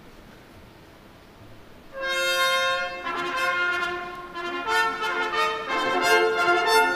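About two seconds of quiet hall, then a symphony orchestra starts a song's introduction, its brass led by trumpets playing a phrase of held notes.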